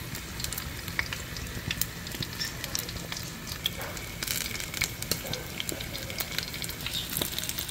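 Sun-dried snakeskin gourami frying in shallow oil in a wide pan: a steady sizzle with many scattered pops and crackles of spitting oil.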